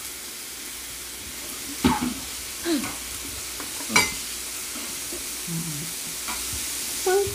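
Pork belly sizzling on a hot grill, a steady hiss, with two sharp clicks about two and four seconds in.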